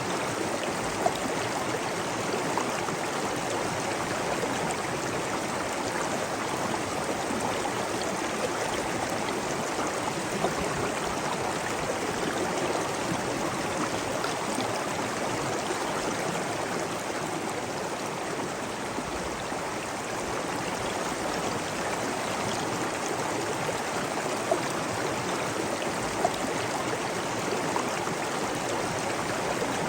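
Flowing water babbling steadily, with a few brief louder drops or splashes here and there.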